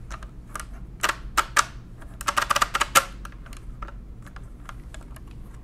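Carriage mechanism of a 1920s Monroe Model K mechanical calculator clicking as its crank handle is turned by hand: a few sharp metallic clicks, a quick run of clicks about two seconds in, then scattered lighter ones. The handle catches a little as it turns, which the owner can't explain.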